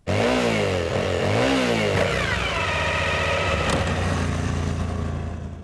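Motorcycle engine revving up and down twice, then falling in pitch and running steadily, with one sharp click about two-thirds of the way in, before fading out.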